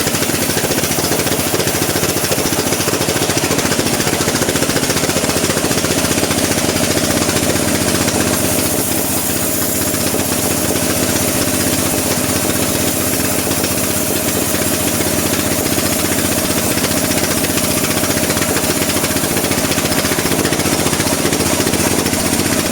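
Engine-driven mobile bandsaw mill running steadily, a rapid even pulsing with a hiss of the saw, as it saws teak.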